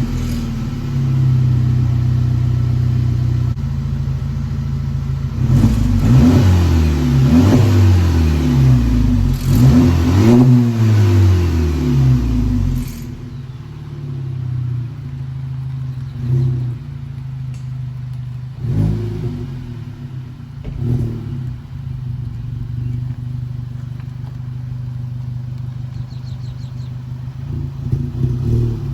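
Mk6 Jetta GLI's turbocharged 2.0-litre four-cylinder running through an AWE Track Edition catback exhaust (stock downpipe). It idles, is revved up and down several times in quick succession from about six seconds in, then settles back to idle with a few short blips.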